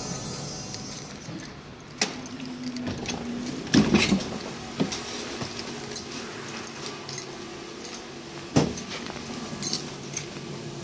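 Inside a DVG light-rail car: a steady low hum with sharp knocks and rattles several times, and a short low tone about two and a half seconds in.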